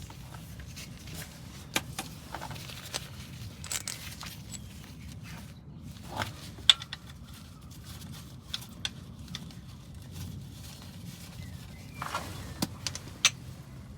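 Scattered clicks and knocks of hand tools and metal parts being handled, the loudest a single sharp click about halfway through, over a faint steady low hum.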